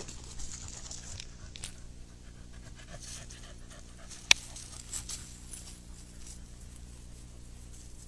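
Panting breaths with rustling in dry leaves and pine needles underfoot, and one sharp click a little after four seconds in.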